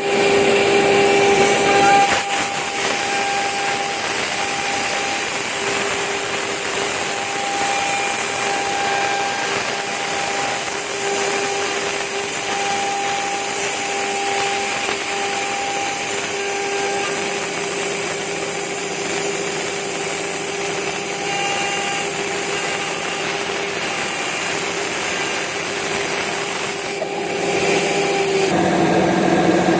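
CNC router spindle milling aluminum: a steady hiss of cutting with a pitched whine that comes and goes as the tool works. Near the end the sound shifts to a lower, slightly louder tone.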